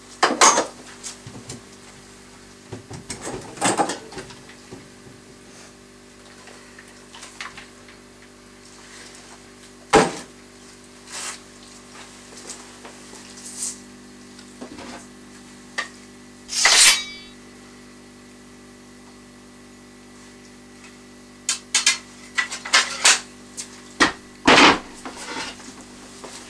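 Scattered knocks and clatter of objects being picked up and moved, a sharp knock about ten seconds in and a quick run of them near the end, over a steady low hum.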